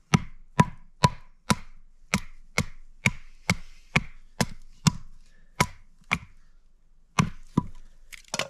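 Batoning: a short log of wood hammering the spine of a fixed-blade knife to split a stick into kindling. About fifteen sharp wooden knocks, roughly two a second, with a brief pause near the end.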